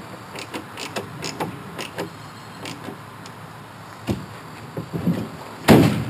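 Chevy Avalanche tailgate swung up and slammed shut near the end: one sharp bang as it latches on its newly cleaned and greased latch. Before that comes a run of light clicks and a few knocks from hand-tightening the plastic tailgate casing's screws and handling the gate.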